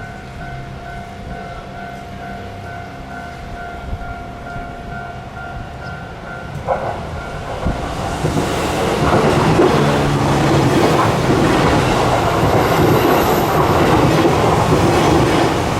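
Japanese level-crossing warning bell ringing in a steady pulsing rhythm, then cutting off about seven seconds in. Soon after, a train runs through the crossing, its wheels clattering over the rail joints and growing loud.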